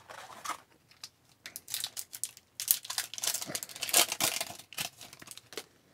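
Foil trading-card pack wrapper crinkling and tearing as it is pulled open by hand. A brief rustle at the start, then dense, irregular crackling through the second half, loudest about four seconds in.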